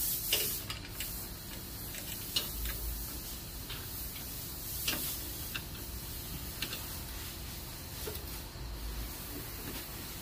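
Irregular light clicks and taps of a plastic engine underbody cover being pushed into place under the car and its retainer fasteners fitted back in by hand, with a couple of dull low thumps, over a steady hiss.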